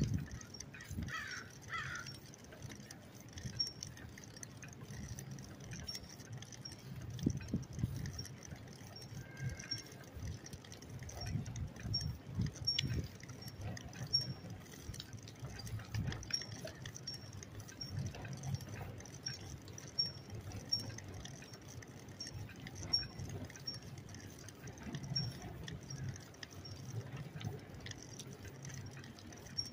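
Bicycle being ridden over an uneven surface: an irregular rumble and rattling from the tyres and frame, with a faint light ticking about once a second.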